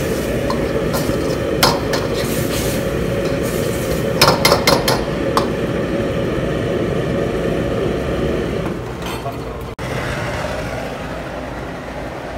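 Steel ladle stirring and scraping food in a steel wok, with sharp metal clinks of ladle on pan, a quick run of them about four seconds in. A steady low rumble from the gas wok station runs underneath.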